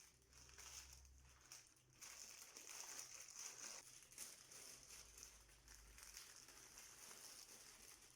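Near silence: faint room tone with a steady hiss and light, irregular rustling.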